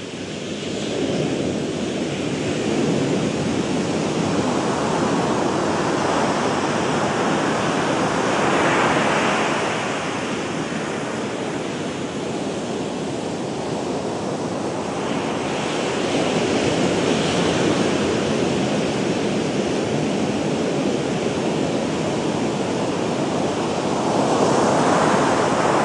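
Ocean surf: large waves breaking and whitewater rushing in a steady noise that swells louder three times, about a third of the way in, past the middle, and near the end.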